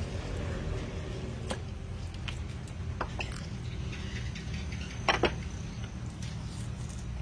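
Wet handling of a freshly split eel on a wooden board as its innards are pulled out, with a few light clicks and a sharper cluster of clicks about five seconds in, over a steady low hum.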